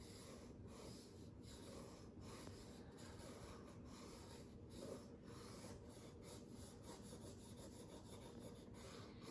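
Faint scratching of a crayon rubbed lightly back and forth over paper laid on a leaf, in repeated strokes with brief pauses between them.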